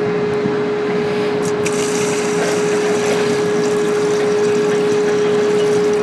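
Water poured from a plastic bucket into a plastic measuring pitcher, the splashing rush starting about two seconds in. A steady hum runs underneath throughout.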